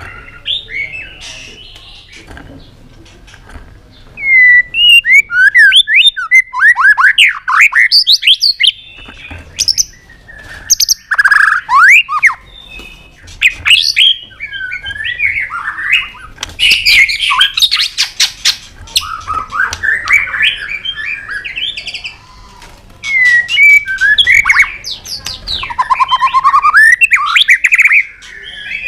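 White-rumped shama singing a fast, varied song of whistled phrases with rising and falling notes, mixed with sharp clicking notes. The song is quieter for the first few seconds, then comes loud in bursts with a couple of short pauses.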